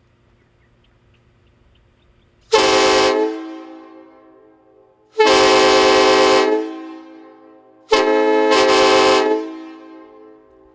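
A homemade PVC replica of a Nathan K5LLA train horn sounds three loud chord blasts, each holding several notes at once. The first blast is short and the second and third last about a second and a half each, and each dies away in a ringing tail.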